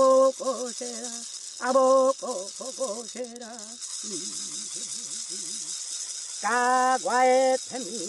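A voice chanting repeated phrases of held, wavering notes over a rattle shaken steadily throughout. The chant is louder at the start and again from about six and a half seconds in, with softer, quicker notes between.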